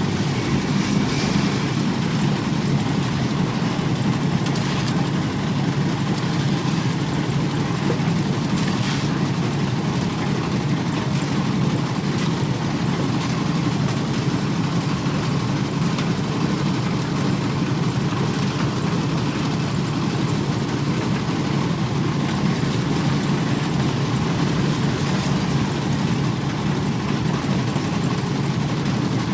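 An old diesel engine running steadily while driving a concrete mixer, with a few faint ticks over it.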